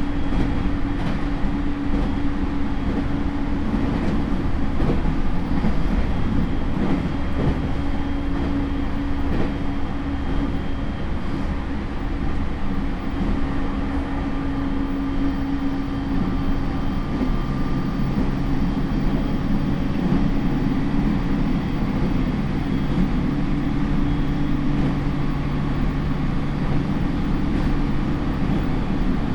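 Interior running sound of a JR E231 series suburban train's motor car, its Hitachi IGBT inverter-driven traction motors giving a steady hum over the rumble of wheels on rail, with a few faint rail-joint clicks. About halfway through, the motor hum drops to a lower steady pitch.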